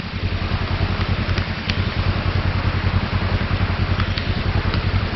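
Side-by-side UTV engine running steadily as it drives, a low, evenly pulsing drone, under a steady hiss of rain.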